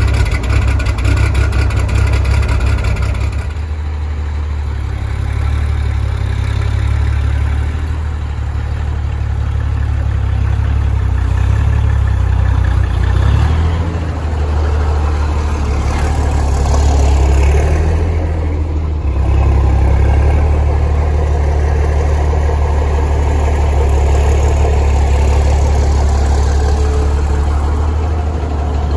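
Caterpillar 3406 diesel engine of a 1979 Kenworth W900A truck running with a steady low rumble as the truck idles and creeps across gravel. The revs swell briefly about two-thirds of the way through.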